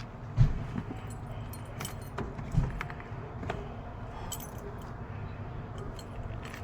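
Two heavy thumps against a van's body, about two seconds apart, with light clicking and rattling between and after them, over the low steady rumble of the running van.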